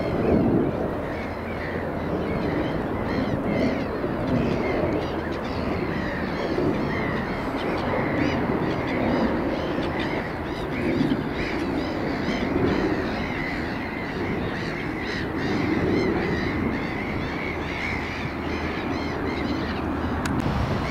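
A flock of crows and gulls calling continuously, with caws and many short overlapping cries, over a steady low background noise.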